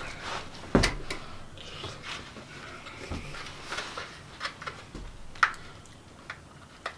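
Spoons and forks clinking and scraping in bowls of food, with scattered small clicks and a dull knock about a second in.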